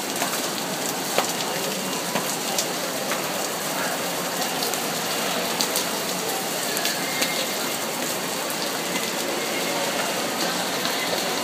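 Torrential rain falling on a glazed station roof, a steady hiss, with scattered sharp drips of water leaking through and splashing onto the flooded floor.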